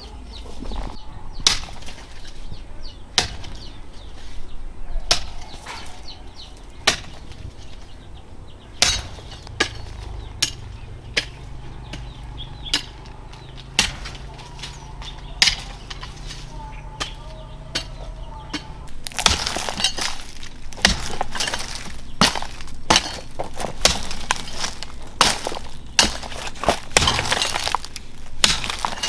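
Hand hoe chopping into stony red soil: sharp strikes about every second and a half, then faster strikes near the end with gritty crunching of earth and pebbles.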